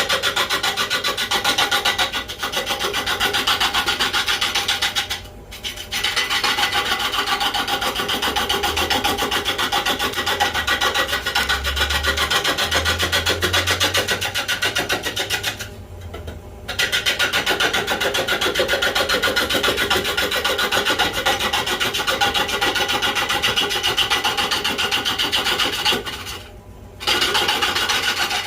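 5/8 inch bowl gouge cutting a piece of magnolia wood spinning on a lathe at about 500 RPM: a continuous rapid scraping chatter, broken by three brief pauses.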